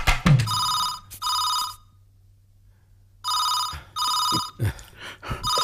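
Telephone ringing in a double-ring pattern: two short rings, a pause of about a second and a half, two more rings, then another ring beginning near the end. A few light clicks fall between the later rings.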